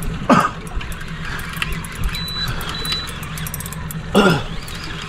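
Boat engine idling with a steady low hum while the boat holds over a fishing spot. Two short falling sounds come just after the start and about four seconds in, and two brief faint high beeps sound about two and three seconds in.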